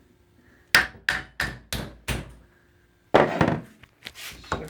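A hammer striking a battered iPod five times in quick succession, then a rougher clatter near the end.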